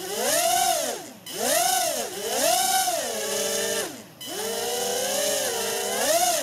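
Eachine QX90C micro quadcopter's four small brushed motors and propellers whining, held in the hand while armed, rising and falling in pitch several times as the throttle is worked. The sound drops almost to nothing twice, about a second in and about four seconds in.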